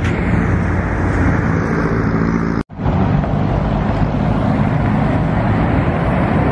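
Loud steady rumble of road traffic mixed with wind buffeting the microphone. The sound cuts out for an instant about two and a half seconds in.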